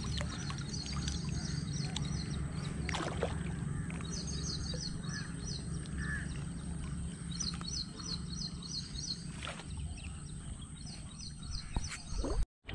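A bird calling in quick runs of high, repeated chirping notes, four runs in all, over a steady low rumble.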